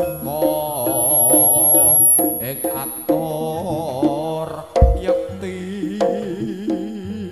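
Jaranan gamelan music: a lead melody wavering in pitch over drums and percussion, with a deep drum stroke about five seconds in.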